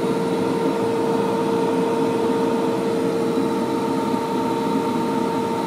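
Heavy earthmoving machine's diesel engine running steadily, heard from inside its cab, with a constant whine over the low rumble.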